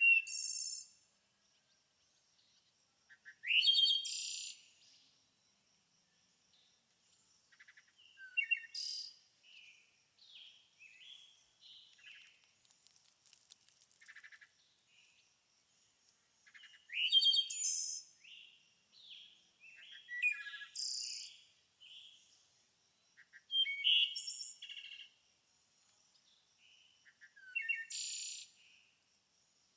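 Songbirds chirping and singing: a loud, high-pitched burst of song every few seconds, with softer short chirps in between.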